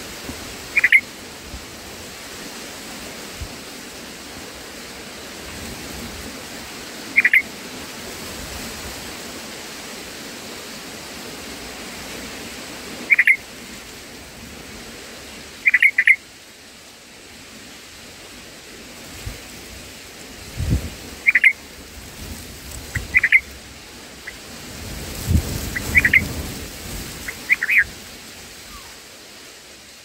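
Red-vented bulbul giving a short, sharp chirp every few seconds, some in quick pairs, over a steady hiss of rain.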